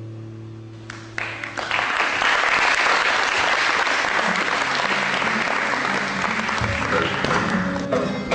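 Audience applauding, the clapping breaking out about a second in as a held music note fades away. Near the end, low notes of the live music start up again under the clapping.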